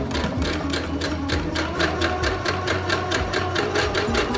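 Husqvarna domestic sewing machine running steadily, the needle stitching a line of long basting stitches through a cotton kitchen towel in a rapid, even rhythm. These are loose gathering stitches laid down for shirring the towel.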